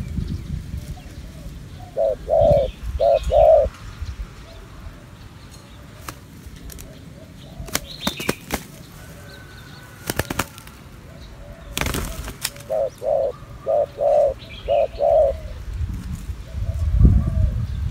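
Spotted doves cooing in two runs of short, low, evenly spaced coos, about four at two seconds in and about seven after twelve seconds. A sudden burst of wing flapping comes just before the second run, and a low rumble near the end.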